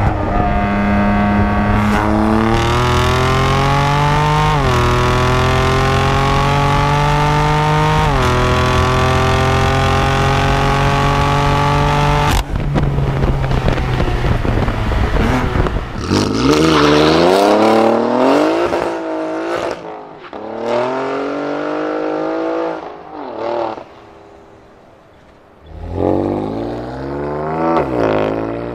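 Sports car engine and exhaust under hard acceleration, the pitch climbing with three quick gear changes, then held high. Later the engine revs up and down several times, dropping to a quieter lull shortly before rising again near the end.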